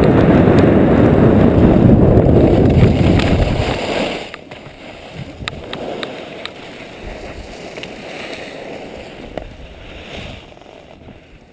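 Wind buffeting the camera microphone and skis hissing over packed snow during a fast downhill run, loud for about the first four seconds. The noise then drops away sharply as the skier slows, leaving a quieter scrape of skis on snow with a few light clicks.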